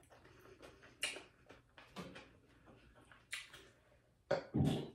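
A few faint mouth clicks and smacks, then a louder crunch of a bite into a piece of raw cucumber near the end.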